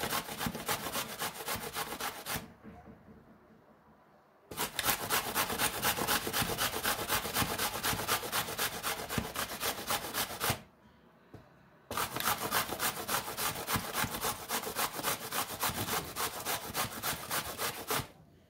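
Zucchini being grated by hand on a stainless-steel box grater: fast, even rasping strokes that stop twice for a moment, about two seconds in and about ten seconds in, and end near the close.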